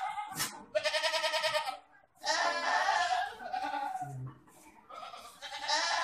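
Boer goats bleating over and over: about four long, quavering bleats one after another, with a sharp click shortly after the first.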